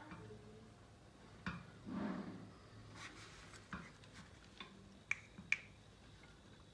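Faint scattered clicks and knocks of handling, with a short rustle about two seconds in and two sharp clicks just after five seconds, over a faint steady low hum.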